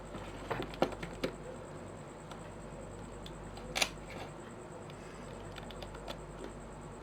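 Plastic pieces of a MoFangGe 5x5 speed cube clicking and tapping as they are slid and pressed into place during reassembly: a few scattered light clicks, the sharpest nearly four seconds in.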